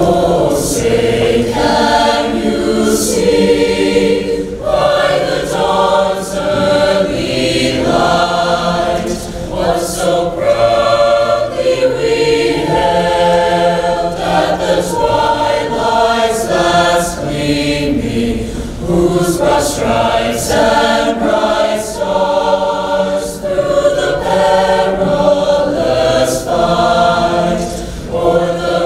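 A choir singing in harmony, held notes moving together through chord changes.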